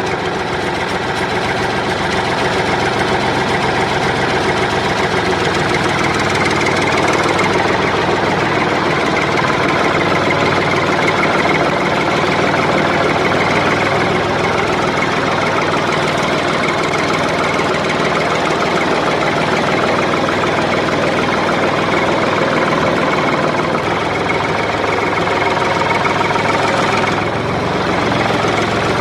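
An engine idling steadily, with a slight drop in level a couple of seconds before the end.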